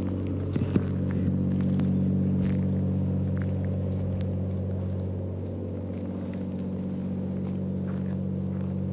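A steady low mechanical hum that keeps an even pitch throughout, with a few light clicks about a second in.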